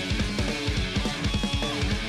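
Fast rock music with electric guitar and a driving drum-kit beat.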